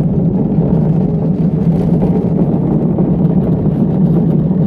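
Steady rolling rumble of a gravity luge cart running down a concrete track.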